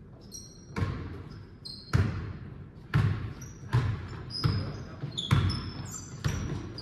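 A basketball dribbled on a hardwood gym floor, about seven bounces roughly a second apart, each one echoing in the hall. Short high sneaker squeaks on the hardwood come between the bounces.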